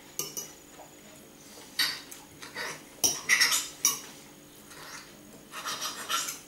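A metal fork clinking and scraping against a plate as it cuts up pieces of omelette, in a series of short scrapes and clicks with pauses between.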